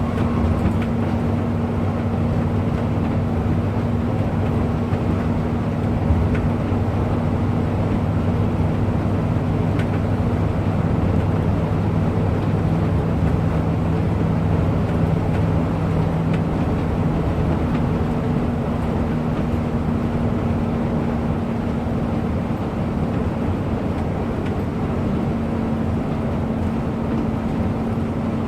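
Bus on the move: a steady engine drone over road noise, its pitch holding with small shifts as the speed changes.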